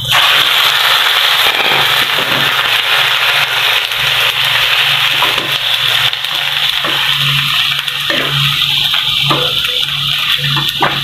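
Freshly washed, still-wet raw chicken pieces dropped into hot oil in a frying pan, bursting into a loud, steady sizzle the instant they go in. In the last few seconds a wooden spatula knocks and scrapes as it stirs them.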